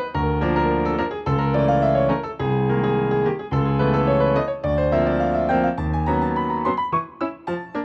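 Background music on a keyboard: held chords changing about once a second, breaking into short, detached notes near the end.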